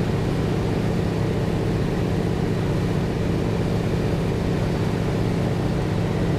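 A T-6 Texan's nine-cylinder Pratt & Whitney R-1340 Wasp radial engine and propeller running steadily, a constant low drone with no change in pitch or level.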